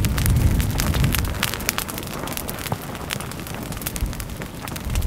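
Vegetation burning as a lava flow engulfs it, giving irregular crackling and sharp pops throughout. A low rumble underneath dies away about a second and a half in.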